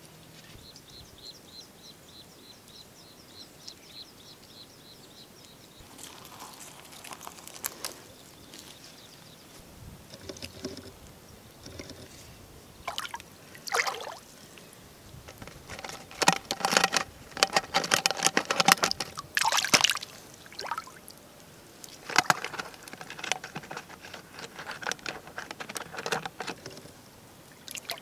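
Hands splashing and sloshing in shallow muddy water around plastic-bottle fish traps, in irregular bursts that are loudest a little past the middle. For the first few seconds a high, rapid chirping pulses about five times a second.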